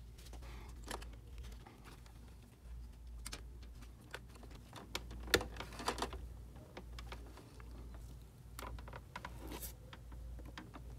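Scattered small plastic clicks and rustling as gloved hands push a thin plastic waste-ink tube into place inside an open inkjet printer, with a sharper knock or two a little past the middle. A low steady hum runs underneath.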